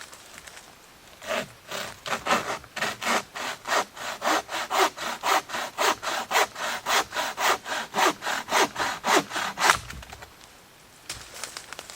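Hand saw cutting through wood in quick, even back-and-forth strokes, about three or four a second. The sawing starts a little over a second in, stops near the end, and starts again just before the end.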